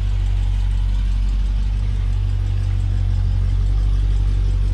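The 2019 Dodge Challenger Scat Pack's 6.4-litre HEMI V8 idling steadily, its sound low and deep.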